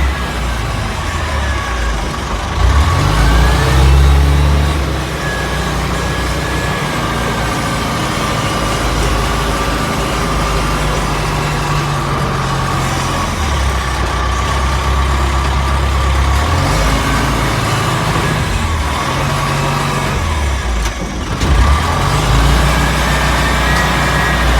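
Caterpillar 930 wheel loader's Cat 3304 four-cylinder diesel running as the machine is driven, its note stepping up and down every few seconds as it is taken through the gears. A thin steady whine sits above the engine.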